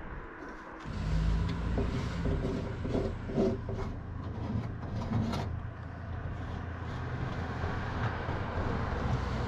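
A steady low engine hum, like a motor vehicle running, starting about a second in and holding level.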